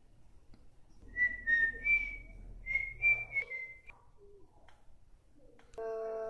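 A person whistling a short phrase of several notes. Near the end a voice starts a held note.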